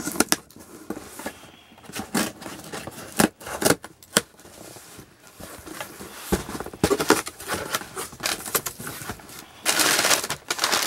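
Cardboard shipping box being opened by hand: the tape on top is cut, then the flaps are pulled open with a series of sharp clicks, knocks and scrapes. Tissue paper packing rustles near the end.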